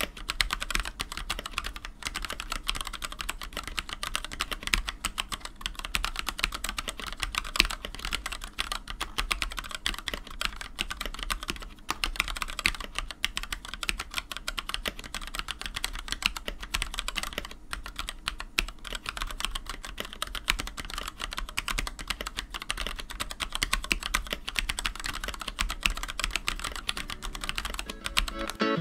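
Fast, continuous typing on a Monstargear Ninja87 Arc XD mechanical keyboard with a full acrylic case and Gateron Black linear switches: a dense run of keystroke clacks with a couple of brief pauses.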